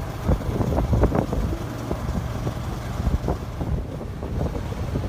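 Road traffic rumbling past, with wind buffeting the microphone.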